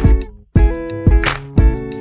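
Background music with a steady drum beat, bass and chords; the track drops out briefly about half a second in.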